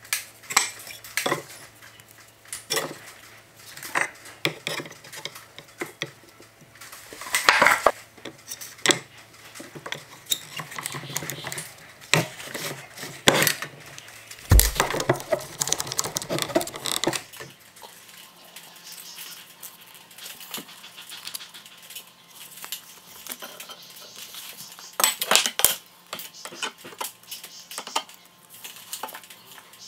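Tools and boards handled on a wooden workbench: irregular clicks, taps and clatter, with a heavier knock about halfway through.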